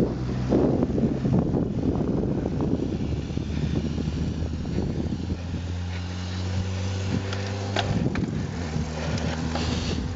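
Wind buffeting a bicycle-mounted camera's microphone as a road bike rolls along. About halfway in, a steady low engine hum joins it: a motorcycle on the road ahead.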